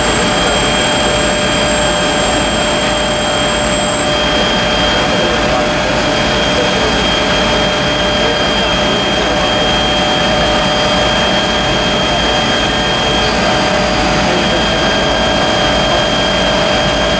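Fire engines' motors and pumps running steadily at high speed: a loud, constant rushing noise with a steady high whine over it.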